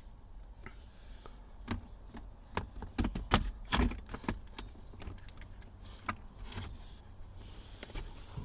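Hard plastic interior trim parts clicking and knocking as a console piece is handled and pushed to test its fit, with a quick run of sharp knocks in the middle.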